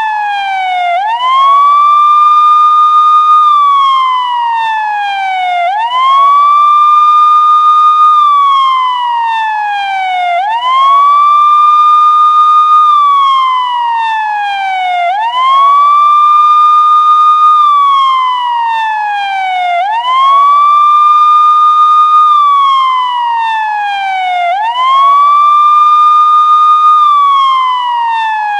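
Police siren wailing: each cycle rises quickly, holds a high note for about two seconds, then slides slowly down, repeating about every five seconds, six times over.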